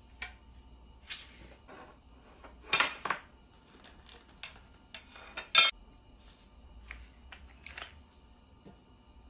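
Metal leg frame and caster wheels of a portable rolling desk clinking and knocking as the parts are handled and fitted together, with louder clanks about three and five and a half seconds in.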